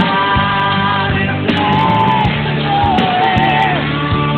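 Rock music with a singer holding long, wavering notes over a steady, full band.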